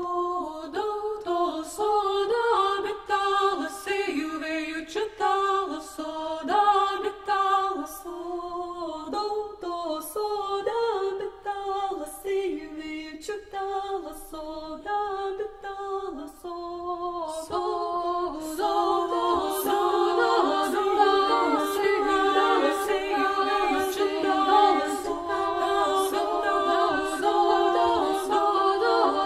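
Lithuanian folk song sung by several unaccompanied voices in interlocking parts, with a sharp tap marking the beat about once a second.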